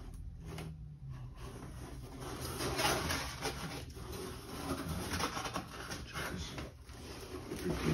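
Cardboard box and plastic packing rustling and scraping as a guitar is worked out of its shipping box, a little louder from about three seconds in.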